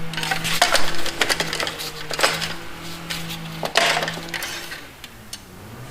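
A few short clicks and rattles as the engine-oil dipstick of a John Deere 125 riding mower is pulled out and pushed back in to check the oil level, over a steady low hum.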